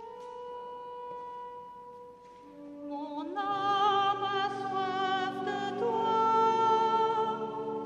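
A held instrumental note. From about three seconds in, a woman's voice sings with vibrato over sustained accompaniment chords, beginning the responsorial psalm.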